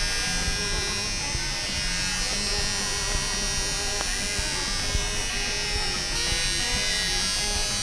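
A steady buzzing drone with a hiss over it.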